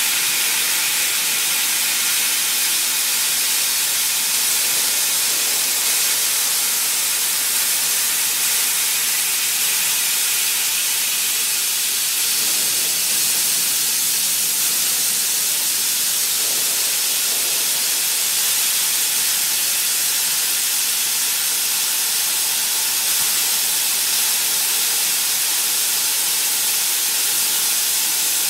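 6000 W fiber laser cutter slicing 25 mm aluminium plate: a steady, high hiss from the cutting head's gas jet blowing through the cut.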